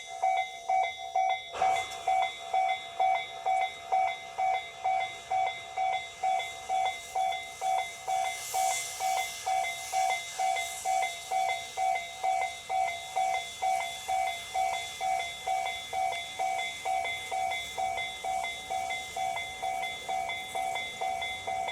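Japanese level-crossing alarm ringing with an even two-tone clang about twice a second, over the running noise of a Tobu train that comes in about a second and a half in.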